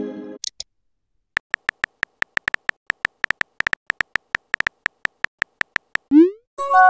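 Phone keyboard tap sounds: a fast run of short clicks, several a second, as a text message is typed. Near the end comes a short rising swoop and then a chime, the sound of the message being sent. At the start, the chime from a message that has just arrived is still dying away.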